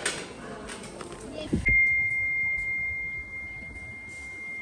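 A steady high-pitched electronic beep tone that starts abruptly about a second and a half in, just after a brief falling low sweep, and holds unchanged. Before it there is the hum and clatter of a busy store.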